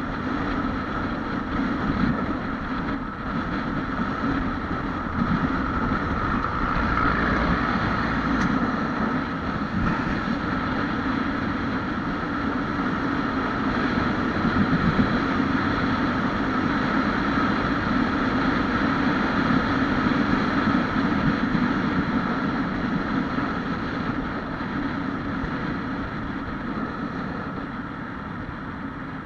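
Honda Wave 125X's single-cylinder four-stroke engine running steadily under way on its stock exhaust, with wind rushing past the microphone. The sound grows gradually quieter near the end.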